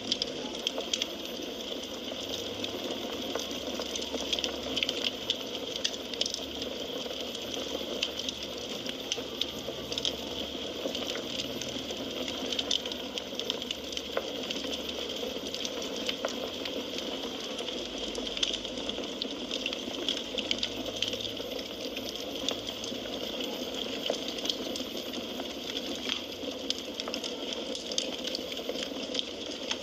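Firewood burning in a fireplace: a steady hiss with frequent small crackles and pops.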